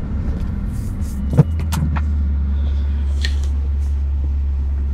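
Maserati Quattroporte's 4.2-litre V8 heard from inside the cabin, its low rumble settling into a steady idle after a sharp click about one and a half seconds in. A few light clicks sound over it.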